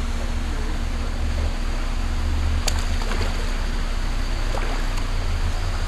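Water lapping around a small fishing boat with a gusty wind rumble on the microphone, and a single sharp click near the middle.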